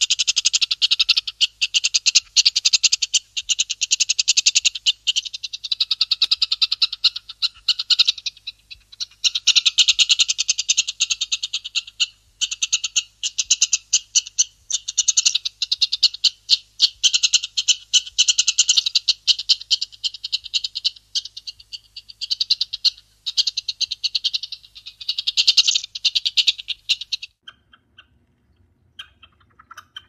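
Frog chorus from a sound-effects recording: rapid trilled croaking in long bouts with short breaks, which stops abruptly about three seconds before the end.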